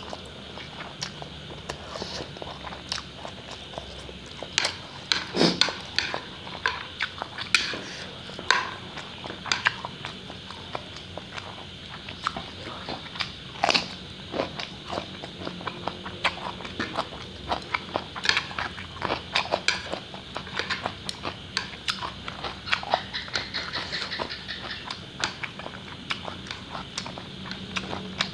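Close-miked eating sounds: slurping spicy instant noodles and chewing, with crisp crunching bites of raw cucumber among many irregular wet clicks and smacks.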